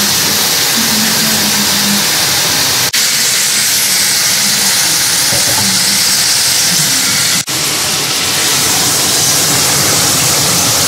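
Meat on the bone frying in oil in a large aluminium pot, with a loud, steady sizzling hiss. The sound drops out for a moment twice, about three and seven and a half seconds in.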